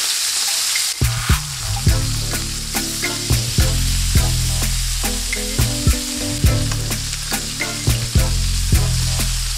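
Chimichurri-marinated chicken thighs sizzling in oil on a hot cast-iron grill pan as they are turned over with tongs. Background music with a steady beat comes in about a second in.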